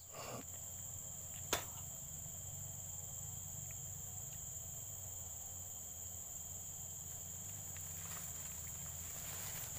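Insects buzzing steadily at a high pitch, with one sharp click about a second and a half in.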